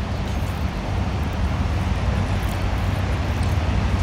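Steady street traffic noise: a continuous low engine rumble under a hiss of passing vehicles.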